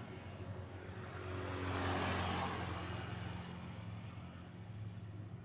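A motor vehicle passing on the road, its noise swelling to a peak about two seconds in and then fading, over a steady low hum.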